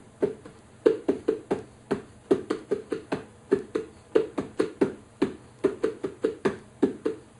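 A pair of bongos played by hand in a funk-rock groove with muffled strokes. The palms rest on the heads, and the hits come as a quick, even run of short strokes, about five a second.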